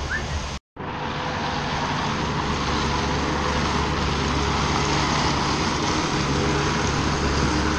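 A vehicle engine runs steadily with a constant hum and wind and road noise, heard from on board the moving vehicle. The sound drops out completely for a moment under a second in.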